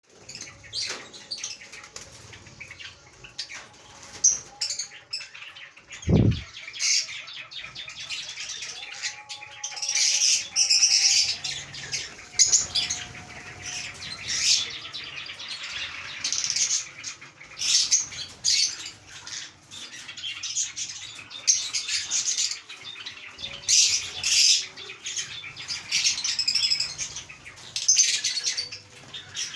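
Small pet parrots chirping and squawking in many short, harsh bursts, with a single low thump about six seconds in.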